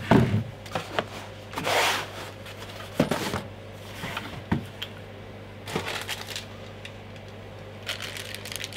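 Unpacking and handling of a desoldering station: a knock as the unit is handled at the start, a short rustle of packaging about two seconds in, single knocks on the tabletop, and a run of quick clicks near the end.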